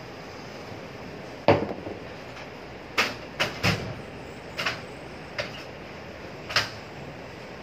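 Aluminium stepladder knocking and clanking: one loud ringing knock as it is brought in, a quick cluster of knocks as it is set down and spread open, then single knocks as feet land on its steps, over a steady background noise.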